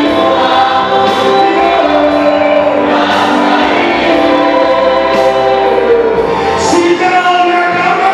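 Choir singing a gospel worship song, the voices holding long notes.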